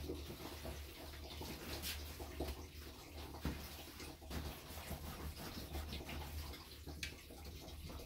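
Water splashing and trickling, with irregular small clicks and splashes over a steady low hum.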